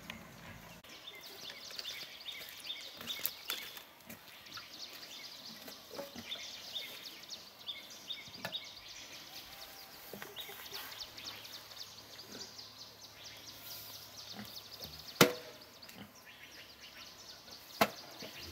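Outdoor ambience of faint high chirping and scattered light ticks, with two sharp knocks near the end a few seconds apart, the loudest sounds here, as a small petrol water pump and its hose are handled and set down at a pond's edge.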